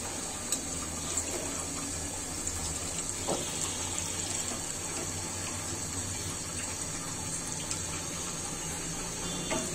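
Lentil fritters (piyaju) sizzling steadily as they deep-fry in hot oil, with a few light taps of a metal spatula turning them.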